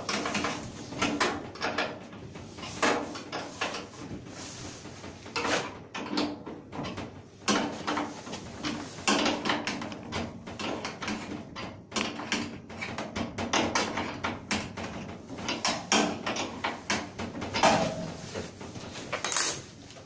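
Perforated filter panels being pushed and fitted into a spray booth's sheet-metal frame: irregular rustling, scraping and knocks of the filter against the metal.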